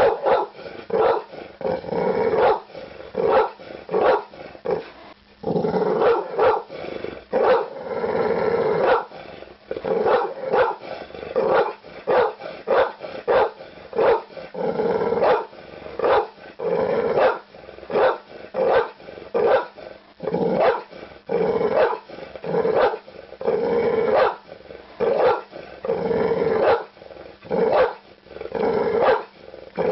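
Pit bull barking over and over in quick succession, about two barks a second, with a few longer drawn-out stretches between runs of barks.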